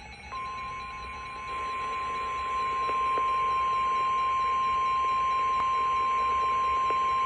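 Weather-radio emergency alert tone: one steady tone near 1,000 Hz over faint radio hiss. It begins just after the start and grows louder over the first three seconds. It is the alarm that comes before a severe thunderstorm warning is read.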